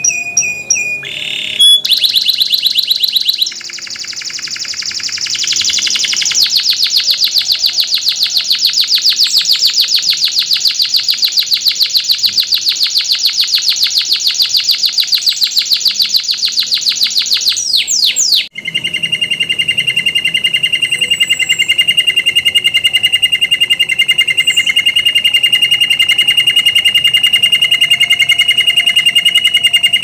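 Domestic canary singing: a few short varied phrases, then a long, very fast high trill (a roll) of about ten seconds. After a brief break it goes into a lower, steady rolling trill on two pitches.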